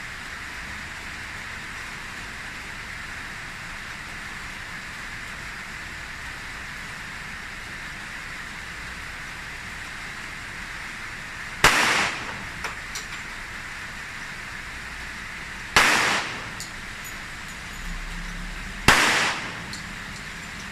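Three handgun shots, several seconds apart, in the second half, each a sharp crack with a short echoing tail, over a steady hiss. A few faint clicks follow the first shot.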